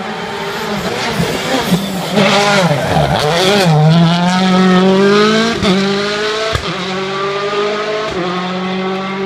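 Rally car engine approaching, with the revs dipping and blipping as it brakes and downshifts into a hairpin about two to three seconds in. It then accelerates hard away, its pitch climbing, with upshifts about five and a half and eight seconds in and a single sharp crack between them.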